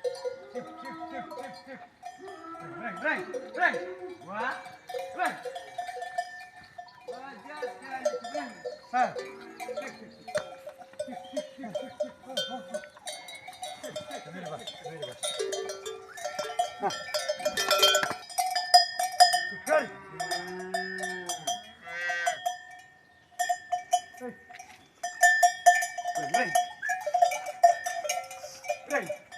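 Bells worn by grazing cattle clanking and ringing irregularly as the animals move, with occasional animal calls among them.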